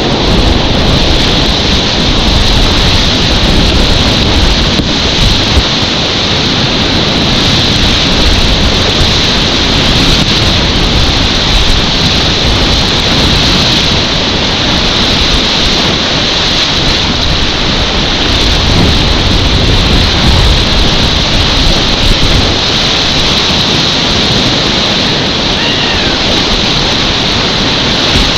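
Steady, loud rushing of class 4 whitewater rapids heard from a kayak running them, with no break.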